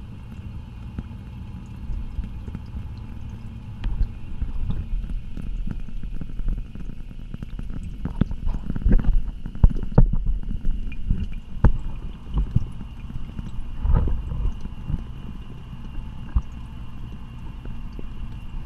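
Underwater sound picked up through a GoPro's waterproof housing: a steady low rumble of moving water with scattered clicks and knocks, thickest around the middle.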